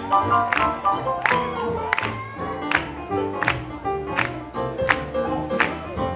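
Live swing jazz band playing, with sustained notes over a sharp beat about every three quarters of a second.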